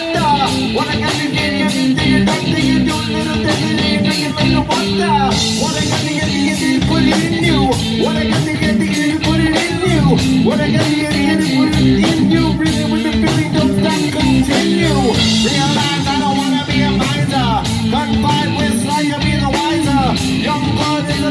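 Live rock band playing loud and steady: electric guitars, bass and a drum kit, with a singer's voice through a microphone.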